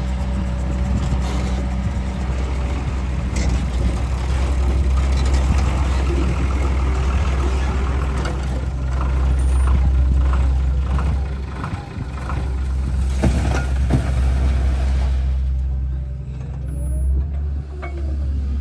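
Heavy diesel engines of an L&T-Komatsu PC200 excavator and an Ashok Leyland tipper truck running with a steady low rumble as the excavator loads the truck. Rocks and soil crash into the steel truck bed a few times, twice in quick succession about two-thirds of the way in.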